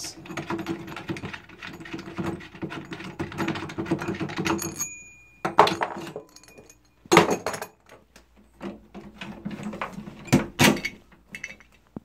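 Metal parts of an old door-knob lock rattling and clicking as the assembly is worked loose and pulled out of the door, with several sharp knocks in the second half.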